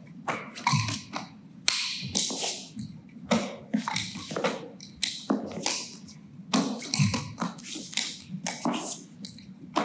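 A nunchaku being swung and caught in quick succession: swishes through the air and sharp taps and slaps, about two to three a second in an uneven rhythm.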